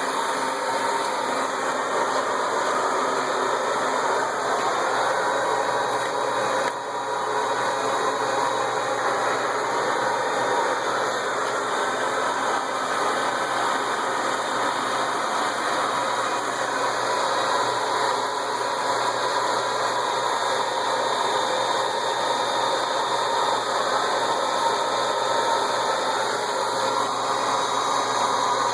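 Hairdryer blowing air into a coal-fired homemade furnace, a loud steady whoosh of forced draft. It dips briefly about seven seconds in.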